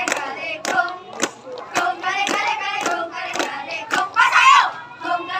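A group of children chanting a scout cheer (yel-yel) in unison, with sharp hand claps keeping time about twice a second. A louder shout comes about four seconds in.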